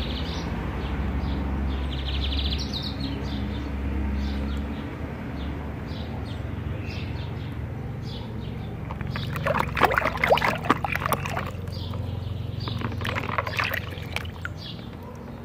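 Water splashing and sloshing in a plastic tub as a mud-covered plastic toy dinosaur is swished through it, in two bursts in the second half. Birds chirp faintly in the background.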